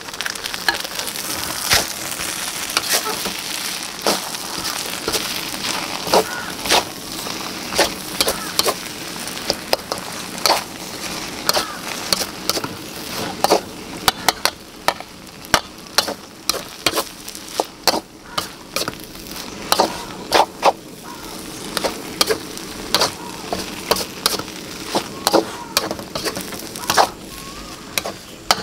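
Rice vermicelli and spring onions stir-frying in a wok: a steady sizzle that fades as it goes on, with a spatula knocking and scraping against the wok in quick, irregular strokes.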